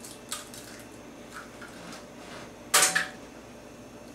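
Eggs being cracked over a bowl: light clicks and taps of shell against the bowl, with one sharper knock a little under three seconds in that rings briefly.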